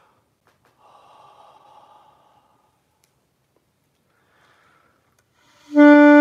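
A soft, breathy exhaled 'ocean sound' through an open, relaxed throat, a breathing exercise to loosen the throat before playing, then a faint breath. About five and a half seconds in, an alto saxophone starts a loud, steady held note.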